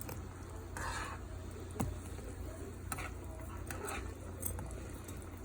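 Kitchen handling sounds: a few sharp clinks and taps of utensils against dishes and a short rustle, over a steady low hum.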